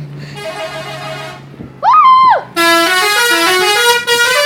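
Telolet horn, a multi-tone musical vehicle horn, playing a stepping melody: a short phrase about half a second in, then a loud, longer run of notes changing about four times a second. About two seconds in, a short loud tone rises and falls between the phrases.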